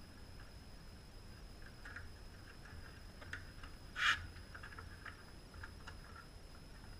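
Faint small clicks and taps of hands handling parts on a moped's engine and frame, with one louder short clack or scrape about four seconds in. A faint steady high-pitched tone sits underneath.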